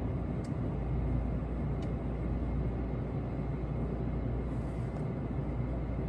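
Low, steady rumble of a VRE push-pull commuter train rolling past, first its bi-level coaches and then the diesel locomotive pushing at the rear, heard through a window.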